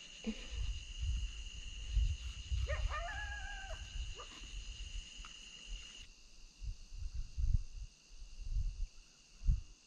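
Steady high-pitched drone of night insects, with irregular low thumps and rumbling from handling on the boat. About three seconds in comes a short pitched call that rises and then holds for about a second.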